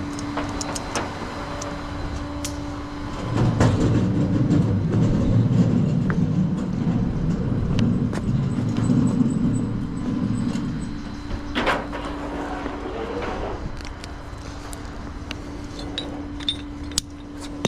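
Flatbed tow truck running with a steady hum. A louder low rumble comes in about three seconds in and eases off about ten seconds in, and a single knock follows shortly after.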